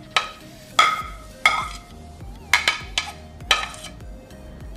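A utensil clinking and scraping against a rice cooker's pot as kuacai is spooned in on top of the rice: about seven sharp, ringing clinks spread unevenly.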